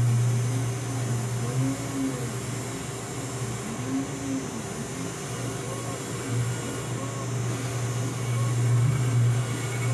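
2.2 kW spindle of a DIY CNC router milling mild steel dry with a 6 mm four-flute carbide end mill: a steady low spindle hum under harsh cutting noise, with a tone that rises and falls over and over as the tool works around the pocket.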